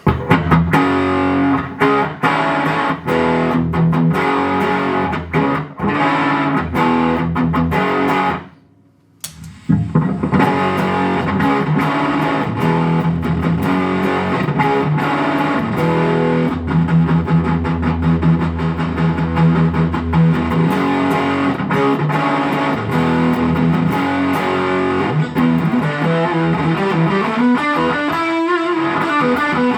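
Distorted electric guitar played through an overdriven amp, with a short pause about nine seconds in.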